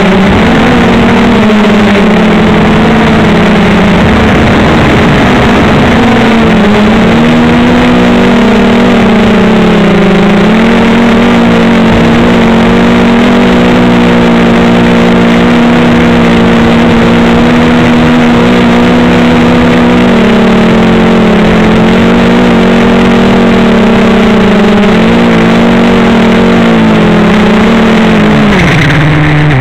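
Blade 350 QX3 quadcopter's four brushless motors and propellers running, heard up close from its onboard camera: a loud, steady drone whose pitch wavers with the throttle. Near the end it falls in pitch and stops as the quadcopter lands.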